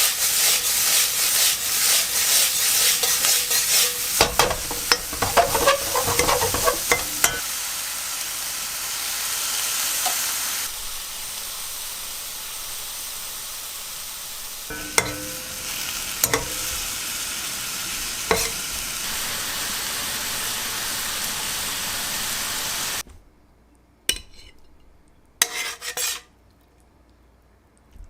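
A steady hissing noise with scattered clicks and knocks. It stops abruptly near the end, leaving near quiet with a few faint knocks.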